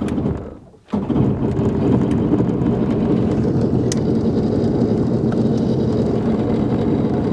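1997 Yamaha Exciter jet boat's engine running under way. It comes up abruptly about a second in, then holds at a steady pitch and level.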